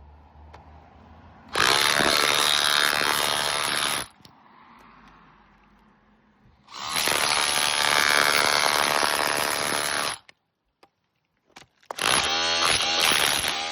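Electric power tool run in three bursts of a few seconds each, with a high whine over a loud grinding noise.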